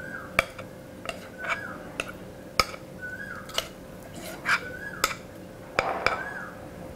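A metal spoon clinking and scraping against a glass mixing bowl as thick batter is scraped out, about a dozen sharp taps at irregular intervals, several followed by a brief falling ring.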